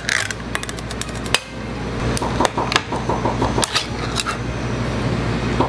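Ring-pull lids of tinned fish cans being levered up and peeled open: sharp metal clicks and snaps from the tabs and lids, with a quick run of small ticks about two seconds in.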